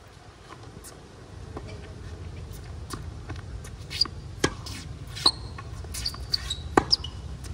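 Tennis ball struck by rackets and bouncing on a hard court: a few sharp pops, the clearest about halfway through and again near the end, over a steady low rumble.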